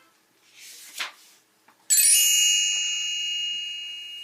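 A bright chime struck once about two seconds in, ringing with several high tones and slowly fading: the page-turn signal of a read-along book. A short whoosh comes about a second before it.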